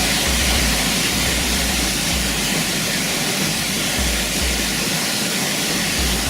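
Waterfall rushing: a loud, steady roar of falling water, with low rumbles that come and go underneath.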